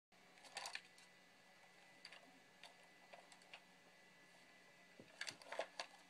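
Faint scattered clicks and taps of plastic being handled: a toy remote-control helicopter and its controller moved about close to the microphone, with a cluster of taps near the end, over a low steady hum.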